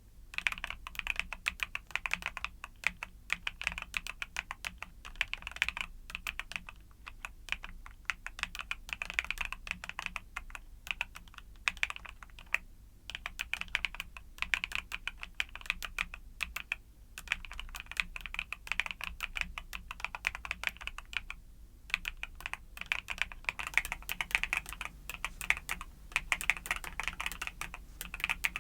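Fast, continuous typing on a YUNZII mechanical keyboard with Cocoa Cream switches: a dense run of keystroke clacks with a few brief pauses between bursts.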